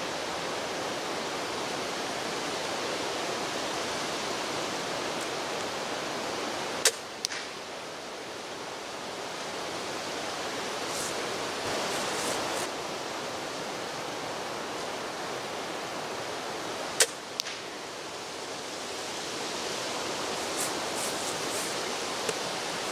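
Two crossbow shots about ten seconds apart, each a sharp snap of the string followed about half a second later by a fainter knock of the bolt striking the hay-bale target 30 yards away, over steady background noise.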